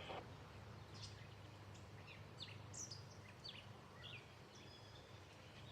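Faint outdoor ambience: small birds chirping in short, quick calls about every half second, over a low steady hum.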